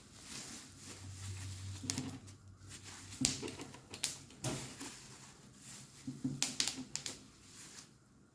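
Irregular light clicks and knocks of hands handling a new plastic blender and its packaging, with a faint low hum about a second in.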